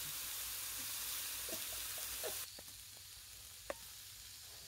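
Strips of pork sizzling on the grate of a gas barbecue grill while metal tongs turn them. The sizzle drops off sharply about halfway through, leaving a quieter sizzle broken by a few light clicks.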